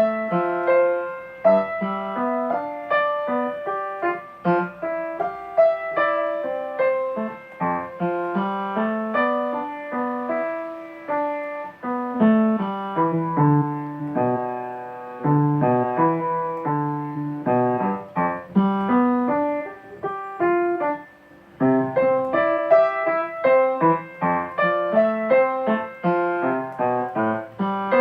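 Solo piano music: a melody over chords, played at a moderate pace, with a brief pause about three quarters of the way through.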